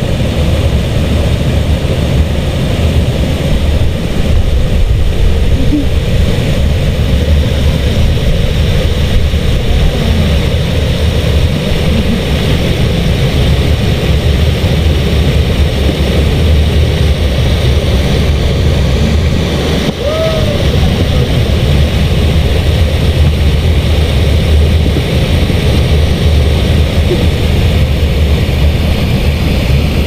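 Loud, steady rushing of water pouring over a small ledge waterfall into shallow river rapids, with a strong low rumble.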